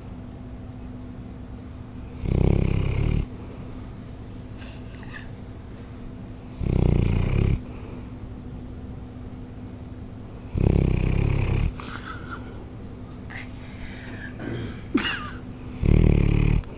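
Bloodhound snoring in her sleep: four loud snores, each about a second long, roughly every four seconds, with a few fainter short noises between the third and fourth.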